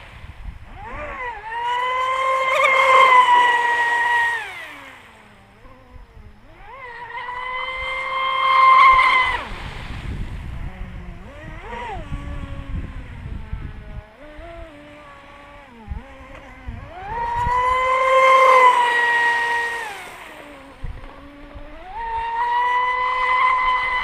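Brushless electric motor of an RC speedboat (Rocket 3674, 3050 KV) whining at speed as the boat laps, the high whine swelling and fading four times as it passes, its pitch dropping away at the end of each pass.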